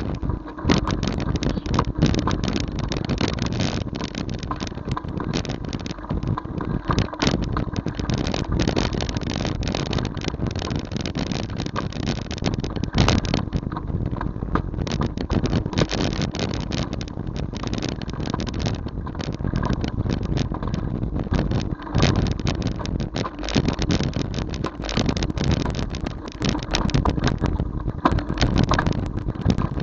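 Riding noise of a vehicle on a rough lane: a steady rumble with wind on the microphone and constant irregular rattles and knocks as the mount jolts.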